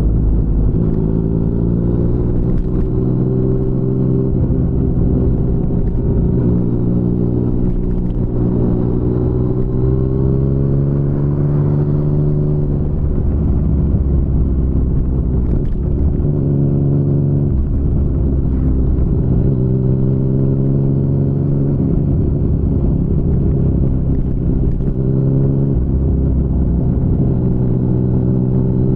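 Yamaha MT-09's 847 cc inline-three running through an Akrapovic full-system exhaust while riding, its revs climbing, dropping off and climbing again several times.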